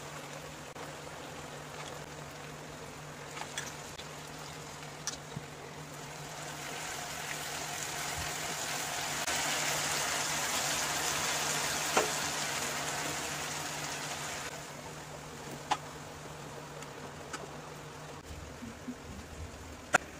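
Vegetables and chilli-soya sauce sizzling and bubbling in a wok, swelling for a few seconds in the middle and then dying down. A steady low hum runs underneath, with a few sharp clicks.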